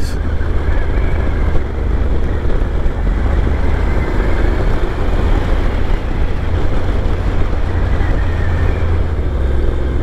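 Honda NC motorcycle's parallel-twin engine running steadily at a cruise, with wind and road noise on the camera microphone.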